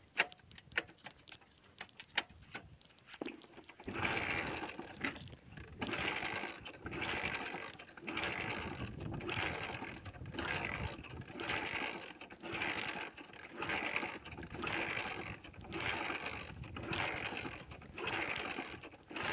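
Hero Honda Splendor's single-cylinder engine being cranked over again and again, about a dozen strokes spaced about a second and a half apart, each one a short mechanical churn with no firing. A few light clicks come first. The engine will not start on the hand sanitizer fed to it in place of fuel.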